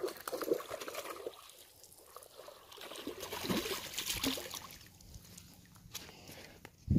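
A hooked bass splashing and thrashing in the shallow water at the bank edge as it is reeled in, in two spells of splashing, before being lifted out. A short low thump comes right at the end.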